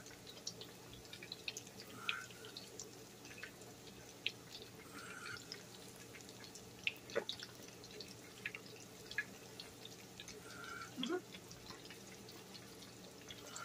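Chicken wings deep-frying in peanut oil in a cast-iron skillet: a quiet sizzle with scattered pops and crackles.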